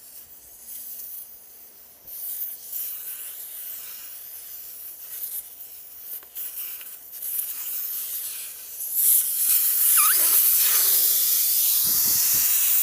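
Air hissing out of a motorcycle's rear tire as it is let down through the valve, in short spurts at first and then as a loud, steady hiss from about nine seconds in.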